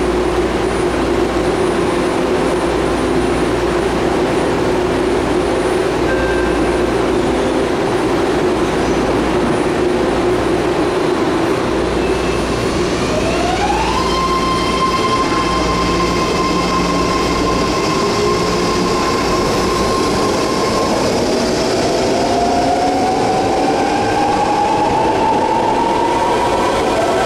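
BART train pulling out of the station: a steady hum at first, then about halfway through a whine from the propulsion glides up in pitch and holds high as the cars gather speed. A second, slower rising whine begins near the end.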